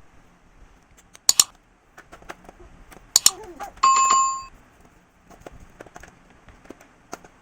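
A few sharp clicks, then a single bell-like ding about four seconds in that rings for under a second, with faint scattered ticks after it.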